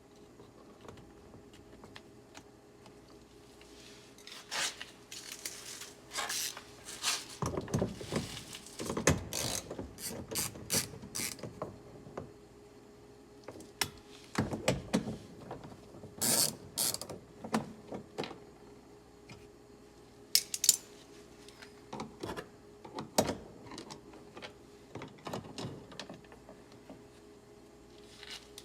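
Irregular clicks, rattles and short scrapes of hand tools and plastic trim pieces as a car door panel is pried and unscrewed, coming in bursts with pauses between, over a faint steady hum.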